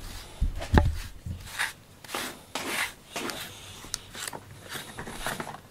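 Scratchy strokes of a fine-wire slicker brush being drawn through a cat's fur, irregular, with a short knock about a second in.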